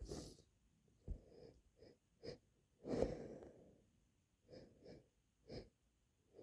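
A person sniffling and breathing through the nose: a string of about ten short sniffs, with one louder, longer breathy burst about three seconds in.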